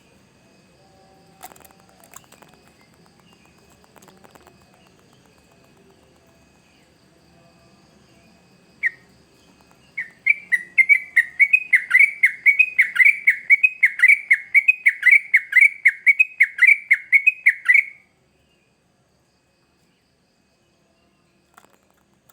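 Yellow-vented bulbul (trucukan) calling: a single note, then a loud, rapid run of repeated down-slurred notes, about four or five a second for some eight seconds, which stops abruptly.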